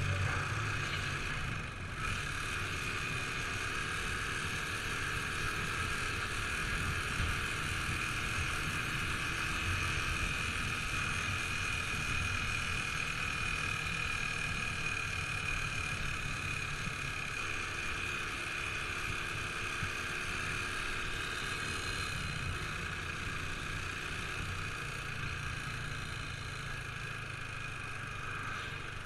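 Motorcycle engine running at a steady cruising speed with wind rushing past, the rider's view of the road ahead. The sound holds even throughout, with a short dip about two seconds in.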